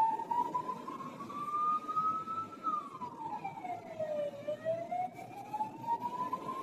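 Emergency vehicle siren wailing: a single tone slowly rising in pitch, falling about two and a half seconds in, then rising again, over the hum of street traffic.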